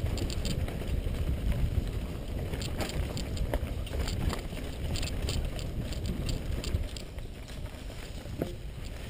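Mountain bike rolling fast over a leaf-covered dirt singletrack. There is a steady low rumble of tyres and wind, with frequent clicks and rattles from the bike over bumps.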